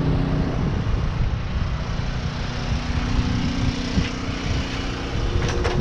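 Portable generator engine running steadily, a constant motor hum; a few sharp clicks near the end.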